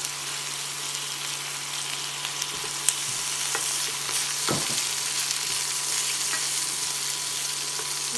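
Mushrooms, wood ear fungus and chestnuts sizzling in a little oil in a stainless steel frying pan while a wooden spatula stirs them, with a few clicks and scrapes of the spatula against the pan. A steady low hum runs underneath.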